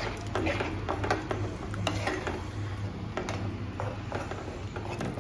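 Wooden spatula stirring and scraping a thick tomato-puree and vegetable mixture around a nonstick kadhai as it fries, in many short scrapes and knocks against the pan. A steady low hum runs underneath.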